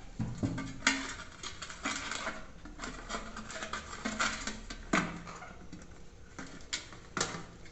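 Handling noise of a Heineken mini keg and a small amplifier board: irregular clicks, taps and light scrapes of parts against the metal can, with sharper knocks about a second in and about five seconds in.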